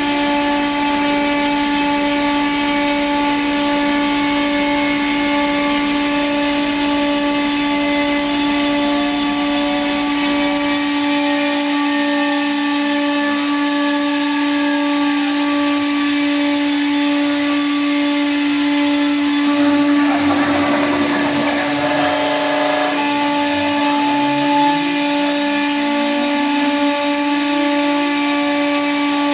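CNC router running as its spindle-mounted bit engraves lines into MDF, a steady machine whine made of several held tones. Around twenty seconds in, a rougher, noisier stretch of a few seconds, with pitches sliding down and then back up.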